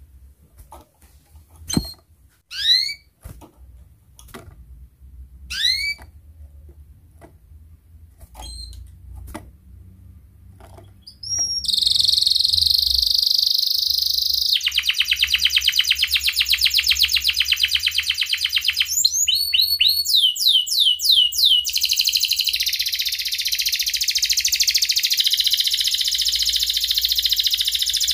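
Domestic canary at first giving separate short, rising chirp calls (cuit cuit), then, a little before halfway, breaking into a loud, unbroken song of very fast rolling trills and quick repeated sweeping notes.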